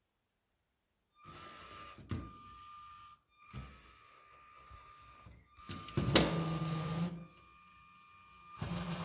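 Small electric motors of a LEGO robot whining in short runs as it drives and works its fork arms. The whine starts about a second in and breaks off and restarts a few times. There is a sharp clack about two seconds in and a louder clack about six seconds in.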